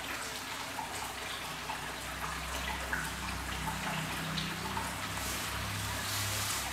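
Cloth towel rustling as it is rubbed over a wet kitten's fur, with small clicks and a faint low hum from about two seconds in.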